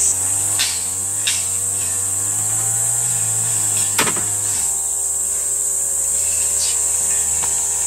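Steady high-pitched buzz of insects, with a few light clicks of chopsticks against a steel wok, the sharpest about four seconds in. A low wavering hum runs underneath.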